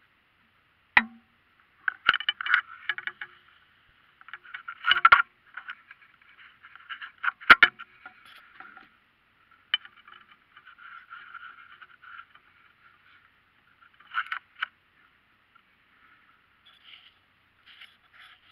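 Handling noise from an action camera on its mount: irregular scrapes and rubs with sharp clicks, and loud knocks about one, five and seven and a half seconds in. The sound is thin, with no low end.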